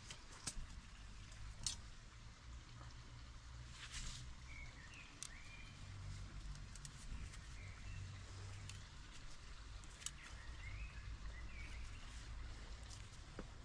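Faint outdoor ambience: a few light clicks and knocks from handling a bent wire plant support at a potted sapling, with short bird chirps about four to five seconds in and again around ten to eleven seconds in, over a low steady rumble.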